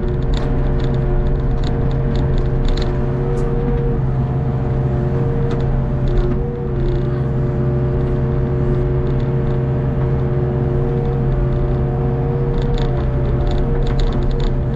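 Hitachi Zaxis 48U mini excavator's diesel engine running steadily under digging load, with a hydraulic whine that shifts slightly in pitch as the arm and bucket work. Light ticks and clatter come through now and then.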